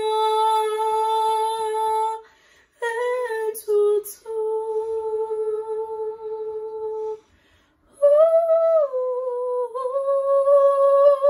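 A young woman's voice singing unaccompanied, with no instruments, in long held notes. A held note of about two seconds comes first, then a few short notes, a held note of about three seconds, and a closing phrase that starts higher and steps down to settle on a held note.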